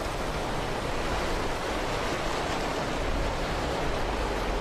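Steady rushing of a flooded river's whitewater rapids, the water swollen by torrential rain.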